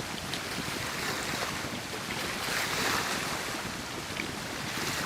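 Wind buffeting the microphone over choppy lake water, with small waves splashing; it swells briefly about halfway through.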